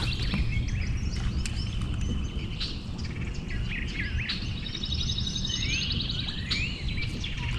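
Several wild birds calling outdoors: rapid high trills and short whistled notes that slide up and down, over a steady low rumble.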